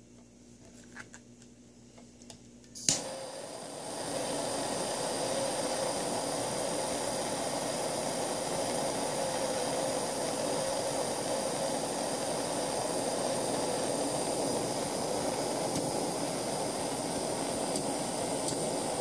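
After a few faint handling taps, a handheld butane jet torch clicks alight about three seconds in and then hisses steadily. The hiss grows louder about a second after ignition. The flame is heating a small rolled mesh wick.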